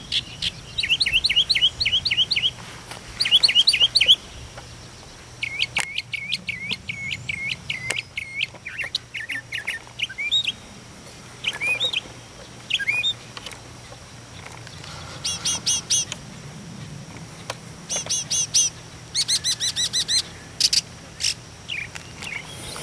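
Northern mockingbird singing: loud runs of rapid high chirps, each kind of phrase repeated several times before it switches to a new one, with a short pause partway through.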